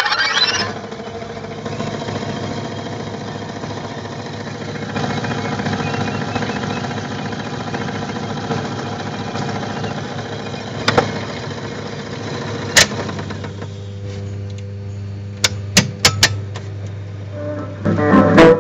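Webster-Chicago wire recorder and its tube amplification idling between playbacks: a steady low hum and hiss. A few sharp clicks of the recorder's controls come about eleven, thirteen and sixteen seconds in, and the hum grows stronger after about thirteen seconds. Music starts loudly just before the end.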